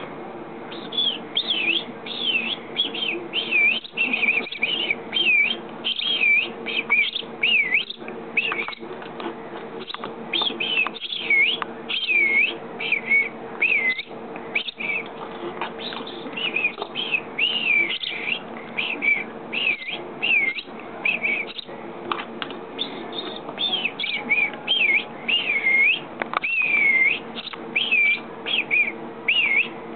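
Quick runs of high, dipping chirps and whistles from nestling sparrows begging for food, mixed with a person whistling to coax them to eat. A steady low hum sits underneath.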